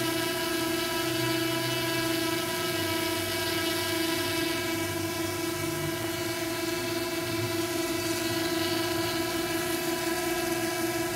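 Steady, even-pitched whine of a quadcopter drone's propellers and motors in flight, holding one pitch throughout.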